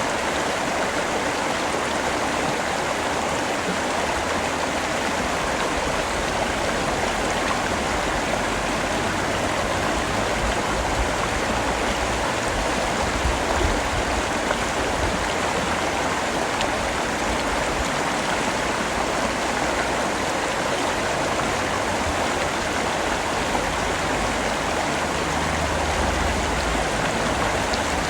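Steady heavy rain, a dense even hiss of falling water with a low rumble underneath that swells now and then.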